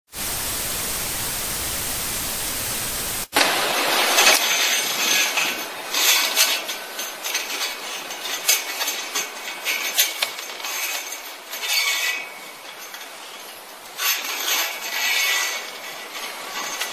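Steady hiss of static for about three seconds that cuts off abruptly, then irregular rustling, crackling and small clicks of handling noise as polyester farm string is tied around a metal pole.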